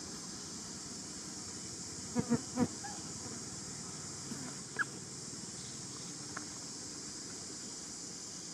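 Three short pitched animal calls in quick succession about two seconds in, then a single brief rising chirp a couple of seconds later, over a steady high hiss.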